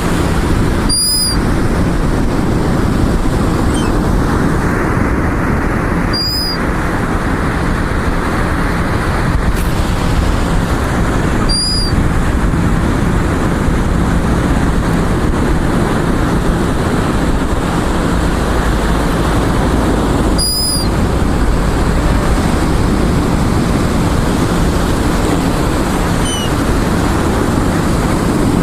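Steady rush of beach wind on the microphone and surf, with four brief clicks spread through it.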